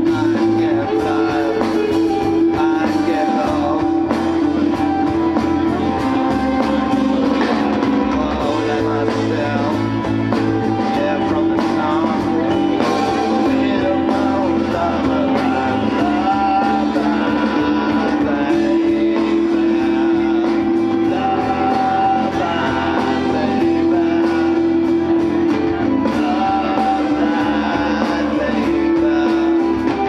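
Live rock band playing loud music: electric guitars over a drum kit keeping a steady beat, with a voice singing.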